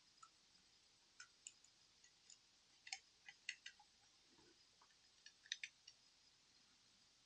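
Small, sharp clicks and taps of tools and small parts being handled while working inside a smartphone, in three loose clusters over near silence.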